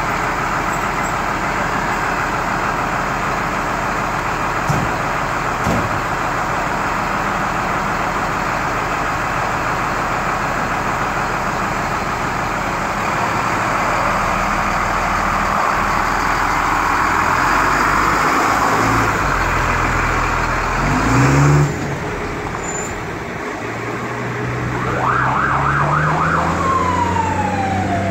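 Fire trucks' diesel engines running in the station bay, a steady dense rumble that drops off suddenly about three quarters of the way in. Then an engine revs as the trucks pull out, a siren gives a rapid warbling yelp, and a siren wail starts up near the end.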